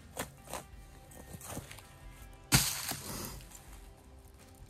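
Dry leaf litter rustling and crunching as a doe's carcass is handled on the forest floor, with one loud sudden crunch about halfway through. Soft background music plays underneath.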